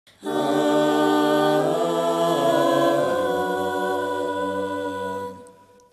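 Voices singing a held chord a cappella, shifting to new notes twice, then fading out near the end.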